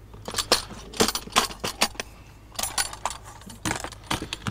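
Hard composite plastic beehive parts clicking and clattering against each other and the box as they are lifted out and set aside, in a scattering of short, sharp knocks that come in small clusters.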